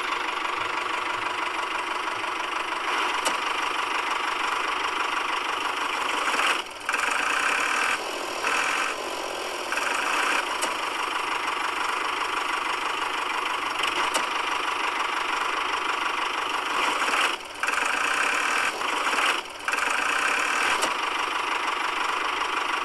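Small motor of a homemade toy tractor running with a steady whirring drone, broken by a few brief dips.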